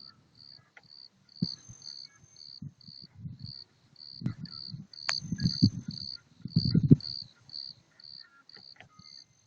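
A cricket chirping steadily, about two short high chirps a second, with bursts of low rumble coming and going, loudest around the middle.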